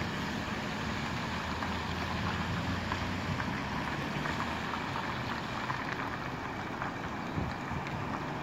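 Steady road traffic: cars passing on a damp street, tyre hiss over a low engine rumble.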